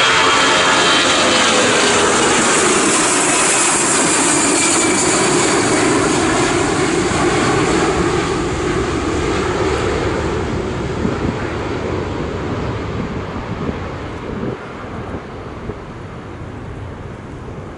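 Four CFM56 turbofan engines of an Airbus A340-300 at takeoff power as the airliner climbs out low overhead. The jet noise is loud at first, with a falling whine as it passes, then fades steadily over the last several seconds to a low rumble as it climbs away.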